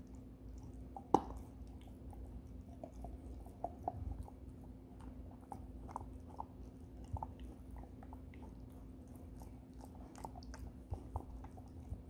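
Golden retriever puppy chewing a Whimzees alligator dental chew: irregular small clicks and crunches of teeth on the chew, with one sharper click about a second in.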